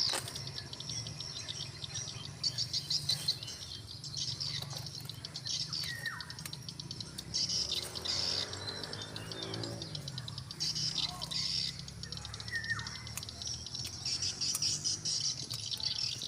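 Swiftlet calls: rapid, high-pitched chirping and twittering in dense trains, with a few short falling whistles and a steady low hum underneath.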